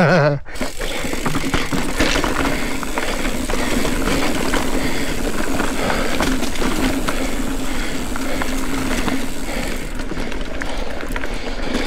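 Mountain bike being ridden on a dirt trail: a steady rush of tyre and wind noise, with frequent small clicks and rattles from the bike over the rough ground.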